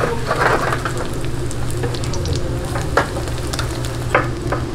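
Vegetable pancake (jeon) batter sizzling as it fries in a frying pan on a gas burner, with a few sharp clicks of a metal spatula against the pan, the loudest about three and four seconds in.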